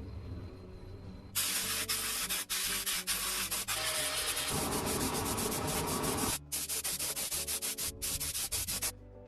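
Sanding of a rusty metal motorcycle part, a loud, even scrubbing hiss that starts about a second in and runs with a few brief breaks before stopping near the end, over background music.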